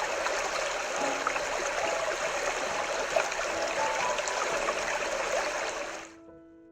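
Recorded sound of a flowing stream played from a moonie plush sleep toy's speaker, a steady rush of water with a few faint tones in it. It fades out about six seconds in.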